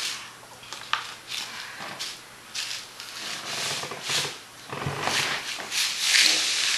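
Rubbing and rustling noise in uneven bursts, with a small click about a second in.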